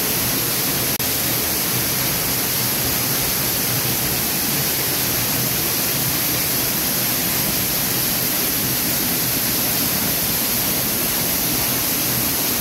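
Waterfall pouring down close in front, a steady, even rush of falling water.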